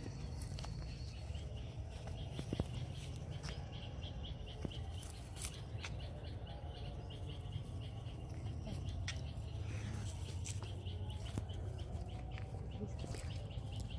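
Outdoor ambience: a low steady rumble with scattered light clicks and faint bird chirps.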